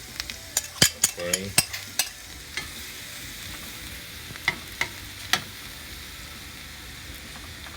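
Minced garlic frying in hot cooking oil: a steady sizzle. There is a cluster of sharp pops and clicks in the first two seconds and a few more scattered later.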